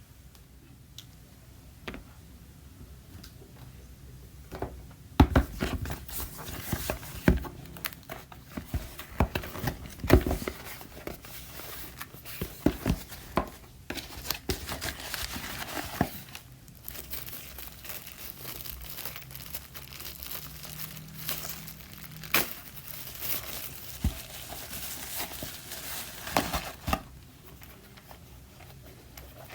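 Packaging crinkling and rustling as it is handled and unwrapped, with sharp clicks and taps throughout. It starts about five seconds in, pauses briefly past the middle, and dies down near the end.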